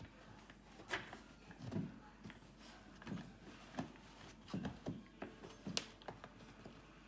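A miniature Australian Shepherd puppy rummaging head-first through a fabric toy bin: irregular rustling and soft knocks as the plush and rubber toys are pushed about.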